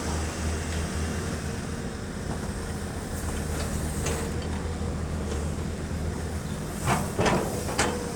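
Caterpillar 320D excavator's diesel engine running steadily under work, with a steady whine over it. About a second before the end come three or four loud clunks.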